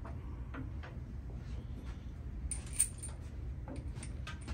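Scattered light metallic clicks and taps of small engine parts and hand tools being handled at the oil pan, one sharper click near the middle, over a steady low hum.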